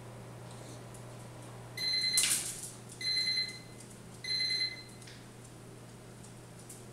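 Three electronic beeps, each about half a second long and a little over a second apart, on one steady high tone. A brief noisy clatter sounds during the first beep and is the loudest moment.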